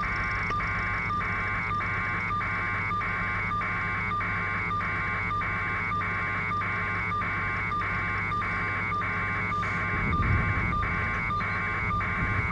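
Electronic beeping, a two-tone buzz pulsing about twice a second, over a steady low helicopter drone.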